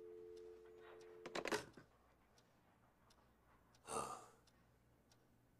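A click, then a steady two-note telephone dial tone from the handset for about a second and a half, ending in a short rustling clatter. About two and a half seconds later a man sighs.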